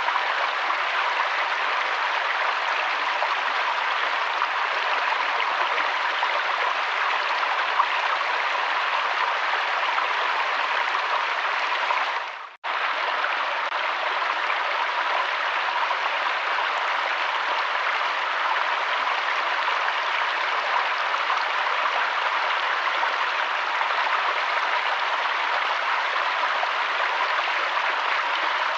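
River water flowing steadily in an even rush. About twelve seconds in the sound fades out briefly and then comes straight back.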